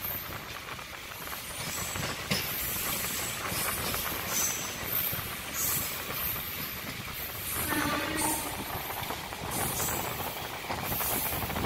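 Electric multiple-unit (MEMU) passenger train running, heard from inside the coach: a steady rumble and rattle of the wheels on the track. A brief pitched tone sounds about eight seconds in.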